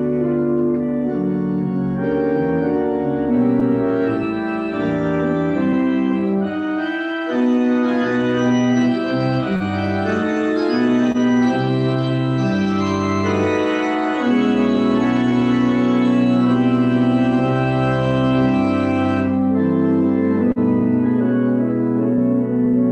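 Pipe organ playing full, sustained chords that change every second or so over a shifting bass. The upper part of the sound thins out about three-quarters of the way through.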